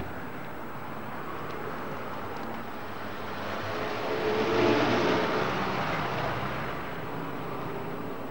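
Street traffic noise, with a vehicle passing that swells to a peak about five seconds in and fades away.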